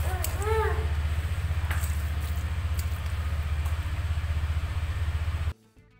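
Fork stirring a mashed tofu mixture in a glass bowl, with a few light clinks of the fork against the glass, over a steady low hum. The hum cuts out half a second before the end.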